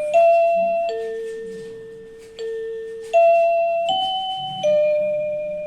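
I-Klic wireless door chime receiver playing an electronic ding-dong melody: about six single bell notes, each struck and left to ring out and fade before the next.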